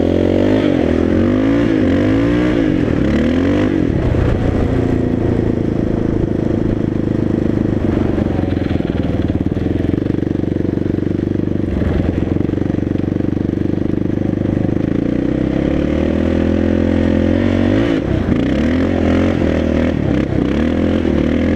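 Yamaha Raptor 660 ATV's single-cylinder four-stroke engine running while ridden, revving up and down over the first few seconds and again near the end, holding steadier in between.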